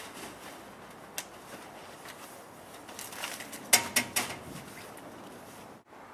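Scattered knocks and clicks over steady outdoor background noise, with a cluster of sharper, louder ones about three to four seconds in: objects being handled and knocked about while someone rummages in a street waste container.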